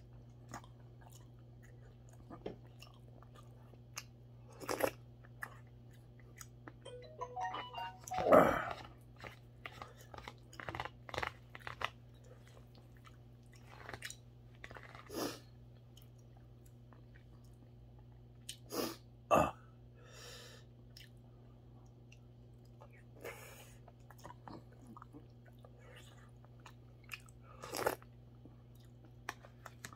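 A person eating mackerel rice porridge with a metal spoon: chewing and mouth sounds, with scattered short clicks of the spoon, the loudest about eight seconds in. A faint steady low hum runs underneath.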